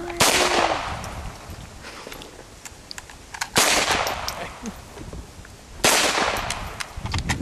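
Three single shots from a stainless semi-automatic target pistol, a little over three seconds and then two seconds apart, each trailing off in a short echo.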